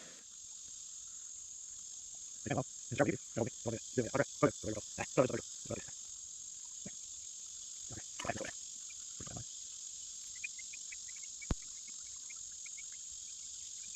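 Steady high-pitched chorus of insects, with a quick run of short voice-like sounds a couple of seconds in and again about halfway, and one sharp click near the end.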